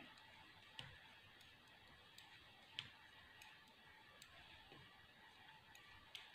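Near silence with faint, scattered clicks of metal knitting needles touching as stitches are knitted; the sharpest click comes about three seconds in.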